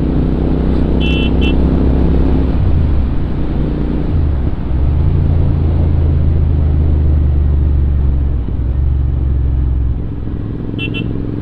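Royal Enfield Interceptor 650's parallel-twin engine running under way, its note shifting a few times as speed changes. Short horn beeps sound about a second in and again near the end.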